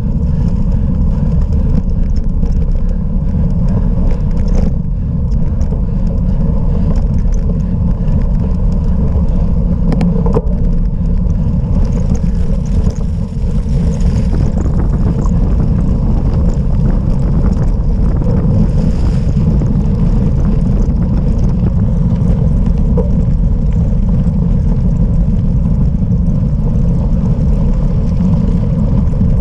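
Wind buffeting the microphone in a loud, steady rumble, with faint scattered rattles and clicks from a cyclocross bike riding over rough off-road ground.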